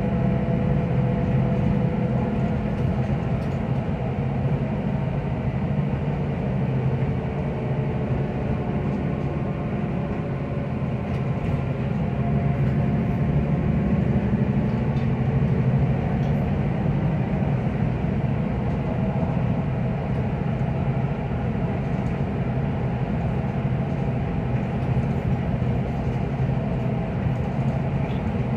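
Solaris Urbino 12 III city bus under way, heard from inside the passenger cabin: a steady engine and drivetrain drone with road rumble, its tones drifting a little in pitch with speed.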